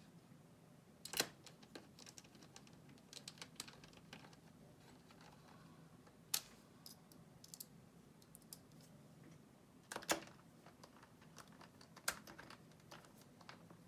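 Light, irregular plastic clicks and taps from an Alienware M17x R3 laptop being reassembled by hand, with a handful of sharper clicks standing out among them.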